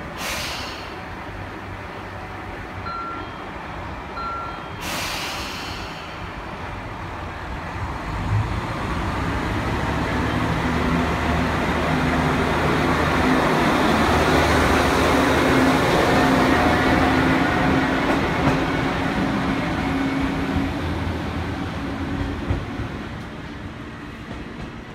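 Tarumi Railway Haimo 330-700 diesel railcar pulling away: two short hisses near the start, then the engine and running noise build steadily as it moves off and passes, loudest about halfway through, and fade as it draws away.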